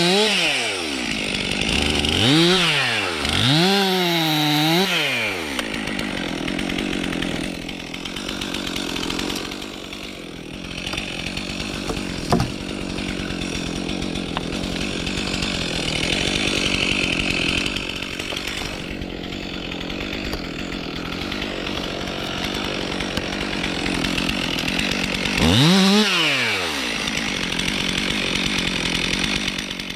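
Stihl MS 362 C two-stroke chainsaw revved up and down a few times near the start and again near the end, with a long steady stretch at speed in between that is typical of cutting through birch wood. A single sharp knock about twelve seconds in.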